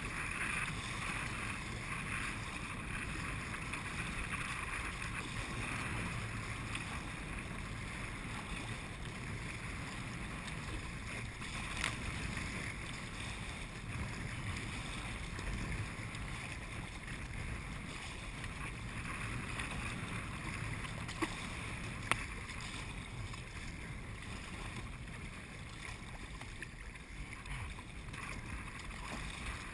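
Wind buffeting the microphone over choppy water slapping against a kayak hull as it is paddled, a steady rushing noise. A few sharp clicks in the second half.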